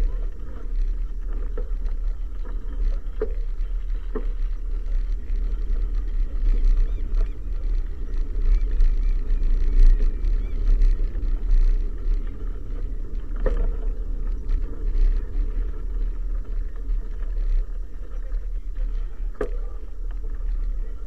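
Wind buffeting the microphone of a bicycle-mounted camera as a deep steady rumble, mixed with the noise of tyres rolling on a lane, with a few sharp knocks along the way.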